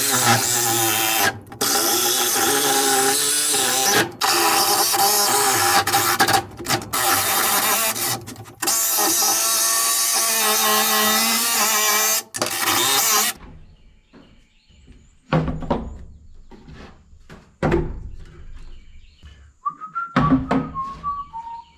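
A cordless power saw cutting scrap wood, running in several long runs with short stops between cuts. After about 13 seconds it stops and a few knocks of wood being handled follow.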